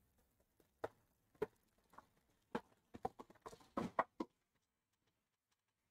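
About a dozen light, irregular knocks and clicks, bunching together a little after the third second, then stopping.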